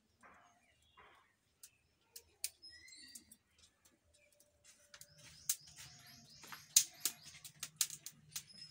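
Small birds chirping a few times. About halfway in, a run of sharp crackles and snaps starts from a twig fire in a clay chulha stove as twigs are fed in.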